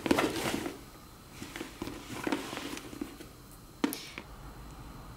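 Hands handling a Louis Vuitton Petit Noé bag and pulling its leather drawstring tight: rustling and rubbing, loudest in the first second, then fainter, with a single sharp click about four seconds in.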